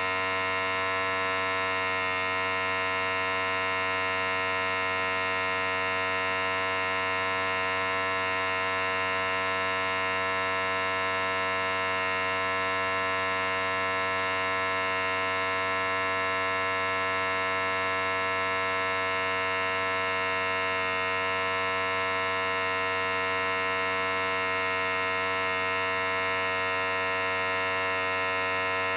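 Electric hair clippers running continuously with a steady, unchanging buzz.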